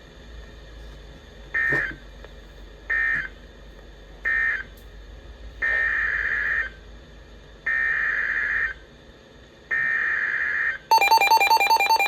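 Emergency Alert System SAME data bursts: three short warbling data bursts marking the end of the previous message, then three longer bursts carrying the header of a new alert. Near the end a louder, steady two-tone EAS attention signal begins.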